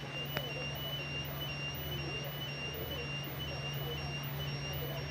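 Handmade toy railway level-crossing signal sounding its electronic warning tone: a high beep repeating evenly about twice a second, over a steady low hum.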